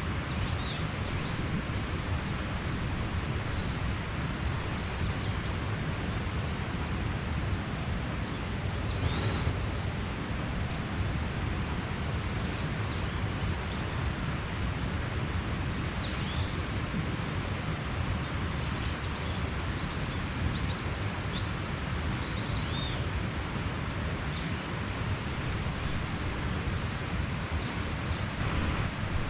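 Mountain stream rushing steadily, with small birds chirping throughout: short high-pitched chirps every second or two over the water.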